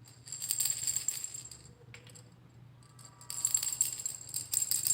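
Montessori sound-box cylinders shaken by hand, their filling rattling inside in two bursts of shaking about three seconds apart.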